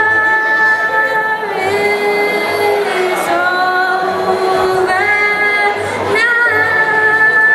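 A young woman singing a slow song into a microphone, holding long notes with short slides between them, over electronic keyboard accompaniment that she plays herself.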